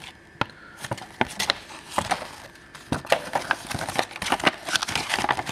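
Paper instruction sheet being handled and folded, crinkling and rustling in a run of sharp crackles that grows much busier from about three seconds in.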